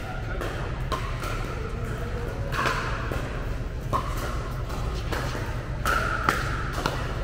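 Pickleball paddles striking the hard plastic ball, about five sharp pops spread over the few seconds, echoing in a large indoor hall.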